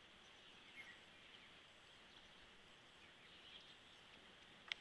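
Near silence: faint outdoor background hiss with a couple of faint, brief high chirps, and a short sharp sound at the very end.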